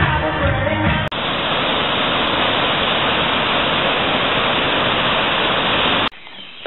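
Waterfall rushing steadily for about five seconds, starting abruptly about a second in and cutting off sharply near the end.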